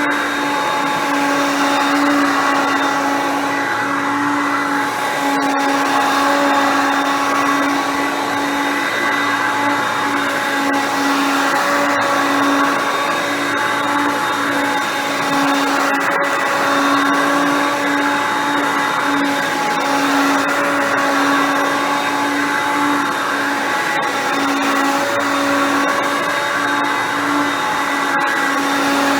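Hoover Concept Two upright vacuum cleaner running steadily while vacuuming: a continuous motor whine with a wavering hum underneath and a few faint clicks.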